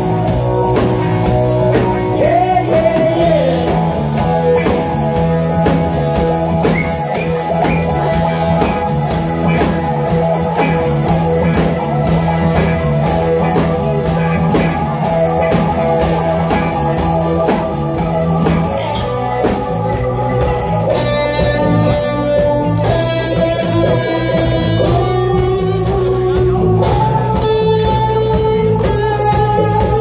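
A rock band playing live: electric guitars, bass, drums and keyboards, with a male lead singer. The singing fills the first part, and over the last third a lead melody of long held notes rises step by step over the band.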